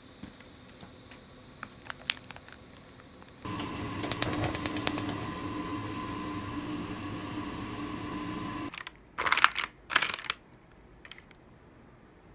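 Light clicks and taps of packaging being handled, then a steady hum for about five seconds with a quick run of clicks near its start, then two short, loud rustles of plastic wrapping.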